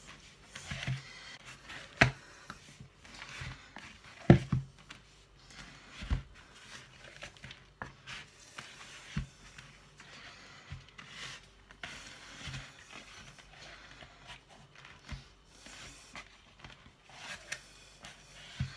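Hands kneading soft bread dough in a plastic mixing bowl: irregular pressing and rubbing sounds, with a short dull knock every few seconds.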